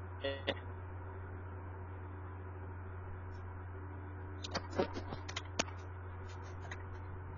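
Steady low hum from an open microphone on a video call. A handful of short clicks and clipped snatches of sound come about four and a half to five and a half seconds in: the caller's audio breaking up over a poor connection.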